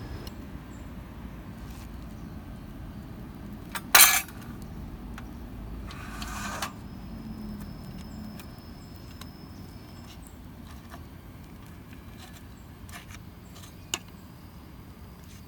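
Metal camp cookware handled: a sharp clank about four seconds in, a short scraping rattle about two seconds later and a small click near the end, over a steady low rumble.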